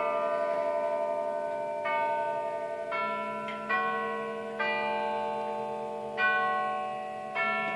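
Herschede Model 250 grandfather clock's tubular chimes playing a chime tune: six tubes struck about a second apart, each note ringing on and overlapping the next.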